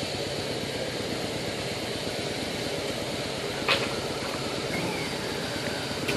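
Harley-Davidson V-twin motorcycle engines running steadily at low revs as a bike is ridden slowly through a cone course. There is a single sharp click about three and a half seconds in.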